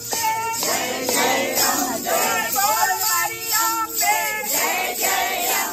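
A group of women singing a Hindu devotional bhajan in unison, with a steady clapping beat.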